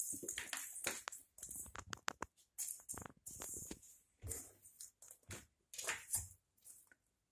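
A cat scrabbling and skittering on a laminate floor as it chases and bats a small ball: irregular light taps, scrapes and quick pattering of paws and toy, with no steady sound.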